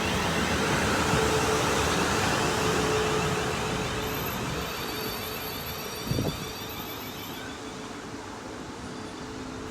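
Class 450 Desiro electric multiple unit running on freshly ground rails, its noise fading steadily as it pulls away. A single short knock comes about six seconds in.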